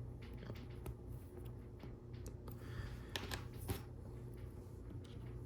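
LEGO Technic plastic pieces being handled and clicked together: scattered small clicks and a short rustle, with a few sharper clicks a little past halfway, over a low steady hum.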